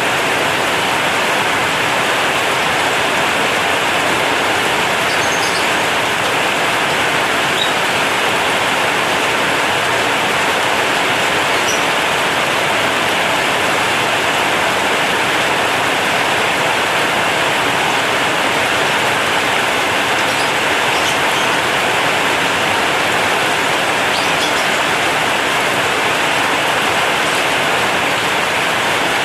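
Heavy rain drumming steadily on a corrugated zinc metal roof, a dense, unbroken hiss.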